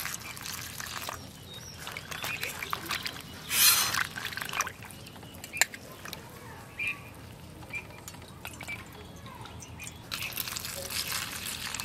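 Water poured from a steel jug over dried tamarind in a steel bowl, then splashing and dripping as a hand squeezes the soaking tamarind. About ten seconds in, the tamarind water is poured out of the bowl.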